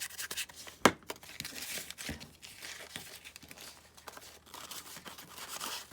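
Paper rustling and sliding as a postcard is tucked into a paper envelope pocket. A sharp tap comes about a second in, and a softer knock about a second later.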